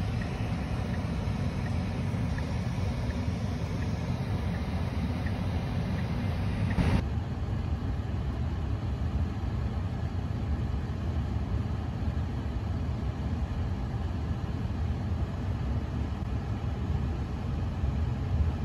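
Steady low road and tyre rumble heard inside a moving car. About seven seconds in there is an abrupt cut, and a similar low rumble continues after it.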